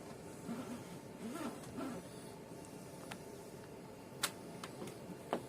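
Quiet handling and scuffing noises with a few soft knocks, then two sharp clicks in the second half.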